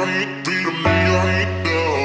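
Background music: a song with guitar and what may be singing, with chords changing about every second.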